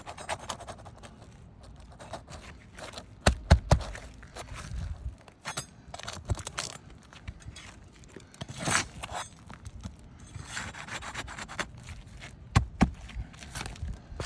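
A metal tool scraping and prying under asphalt roof shingles to pull out roofing nails, with several sharp knocks: a cluster about three and a half seconds in, one near nine seconds and a pair near the end.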